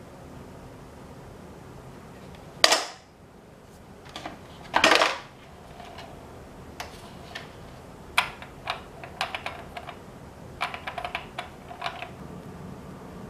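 Hard plastic knocks and clicks from a plastic Minion character container and figure being handled: a small Minion figure is put inside and the crown-shaped lid shut. Two loud knocks a couple of seconds apart come first, followed by a run of light clicks and taps on the plastic.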